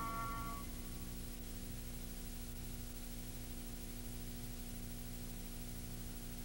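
Background music ends within the first second, leaving a steady hiss and a low electrical hum from the recording itself.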